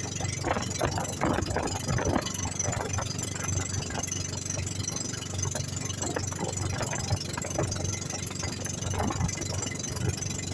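Engine of a bangka outrigger boat running steadily underway, a constant low hum with irregular knocking on top.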